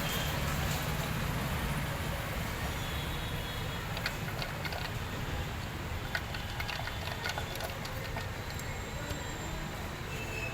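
Light metal clicks and taps as a TVS Sport motorcycle engine's crankcase cover is seated and its kick-start is tried, over a steady low background rumble.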